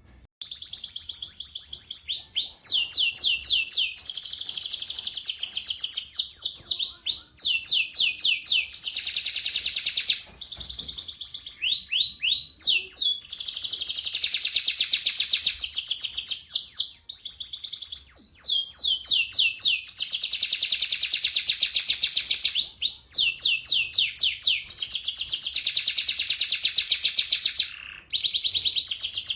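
Domestic canary in full song, delivering a long rolling song of fast, high trills broken up every few seconds by runs of quick downward-sweeping notes. The song starts about half a second in.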